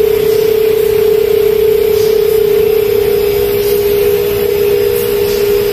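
Candy production line machinery running: a steady hum with one strong, unchanging tone over an even mechanical noise.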